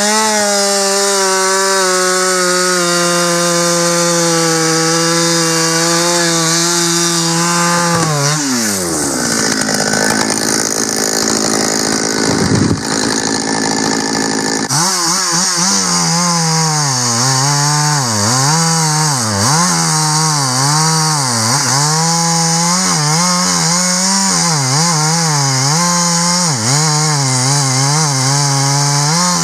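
Husqvarna two-stroke chainsaw running at high speed in a big oak. About eight seconds in it winds down, and a stretch of crackling, rustling noise follows as the tree comes down. From about halfway on the saw runs in a cut in another oak, its engine speed rising and falling quickly as it works through the wood.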